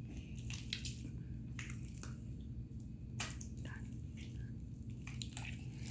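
Homemade glue slime being squished and handled, with faint, irregular little clicks and pops.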